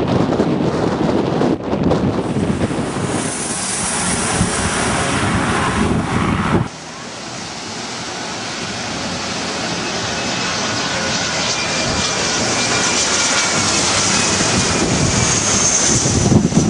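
Gusty wind buffeting the microphone over distant jet engine noise. About a third of the way in, this gives way to a landing jet airliner, a Boeing 747 on final approach, whose engine whine grows steadily louder as it comes in low overhead.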